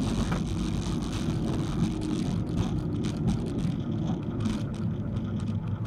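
Cockpit noise of a Cozy MKIV canard plane on its landing rollout: the rear-mounted engine running at idle under a steady low rumble of the wheels on the runway as the brakes are applied.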